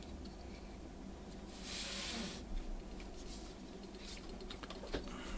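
Quiet handling noise of the JBL PRX518S subwoofer's amplifier circuit board being lifted out of its heatsink chassis: a brief rustling scrape about two seconds in and a few faint clicks.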